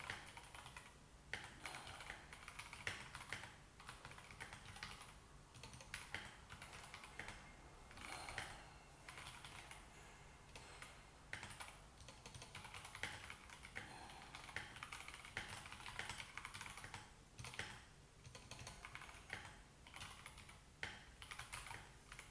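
Typing on a Royal Kludge RK84 mechanical keyboard with linear Gateron Yellow switches and thick XDA-profile PBT keycaps. The keystrokes come in quick runs of clicks with short pauses between them.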